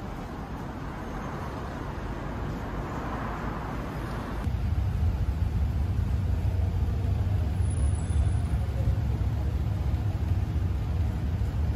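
Steady outdoor city background noise. About four seconds in, a heavy low rumble joins it and holds steady.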